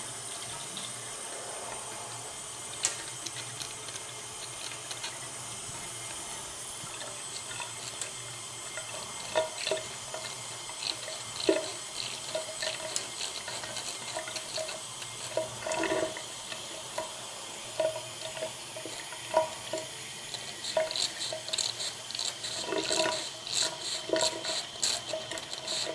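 Thin stream of tap water running into a stainless steel kitchen sink, with irregular short splashes and clicks as a marker refill cartridge is pumped under the stream to flush out leftover ink. The splashes start about a third of the way in and come thick and fast near the end.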